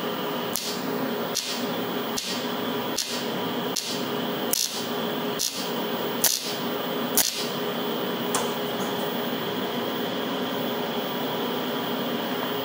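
TIG welding on cast aluminum: the arc runs over a steady hum, with a sharp tick about every 0.8 seconds. The ticks stop about two-thirds of the way through as the weld ends, and the steady hum carries on.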